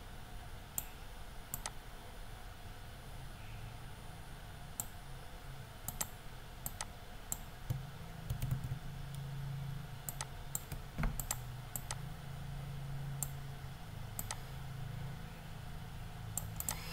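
Computer mouse clicking: single sharp clicks at irregular gaps of about a second, over a faint low hum.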